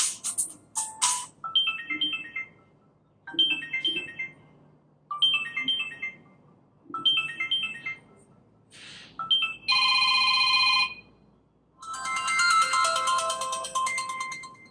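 Smartphone loudspeaker playing a series of short ringtone snippets one after another, as if each tone is being previewed in turn: four brief chiming phrases, then a steady electronic beep about a second long, then a longer melody.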